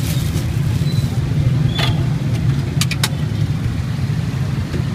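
Steady low engine-like rumble, with a few sharp clicks about two and three seconds in.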